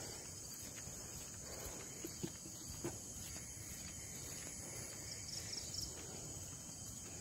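Night insects, crickets among them, chirring in a steady high drone, with a brief pulsed chirp a little after five seconds in. A few soft footsteps sound about two to three seconds in.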